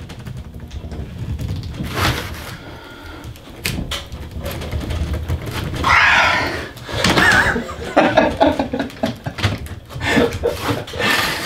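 A Phillips screwdriver clicking and scraping as a man forces a stuck screw on a moulded case circuit breaker's trip unit, with his strained grunts and a loud effortful exhale about six seconds in.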